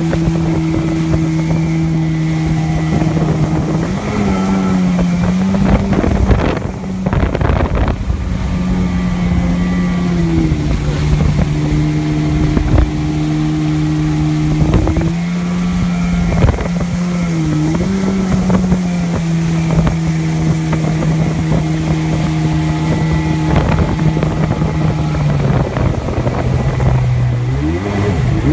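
Old Yamaha WaveRunner's two-stroke engine running at cruising speed, its pitch rising and falling a few times as the throttle is eased on and off, over the rush of water and wind on the microphone. Near the end the engine note drops sharply.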